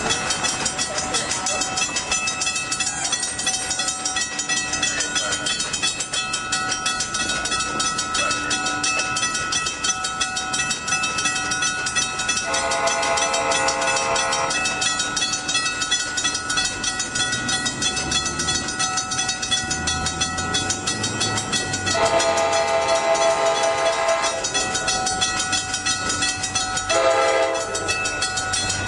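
Railroad grade-crossing bell ringing steadily while an approaching train sounds its multi-chime horn: two long blasts, about midway and later, then a short one near the end, the opening of the long-long-short-long crossing signal.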